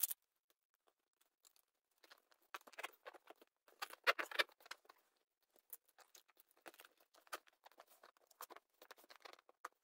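Fingertips and knuckles pressing and rubbing a glued linoleum patch down into its hole, with faint scattered taps and scrapes on the vinyl, densest about three to four seconds in. A sharp click comes at the very start.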